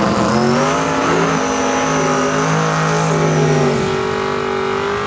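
Drag car engine at full throttle accelerating down the strip. Its note holds high and steps in pitch about a second in and again near four seconds, with a thin high whine over it.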